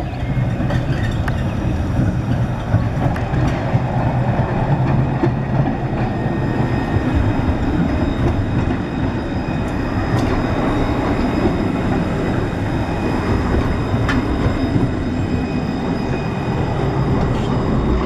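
Low-floor electric tram running past on street track: a steady rumble of steel wheels on the rails with a faint high steady whine, and a few sharp clicks scattered through it.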